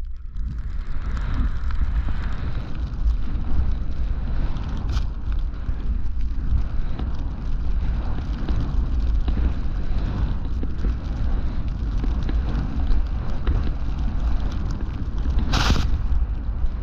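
Wind rushing over the camera's microphone as a skier runs fast through deep powder, with the hiss of skis in the snow. A short, louder whoosh comes about a second before the end.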